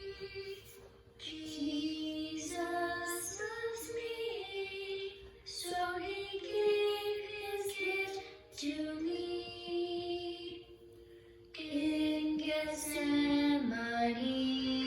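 A high voice singing a slow, gentle song in phrases with short breaths between them, over a held accompaniment note.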